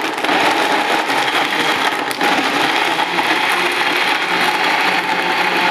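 Countertop electric blender running steadily, blending a thick milkshake with ice cubes in its jug.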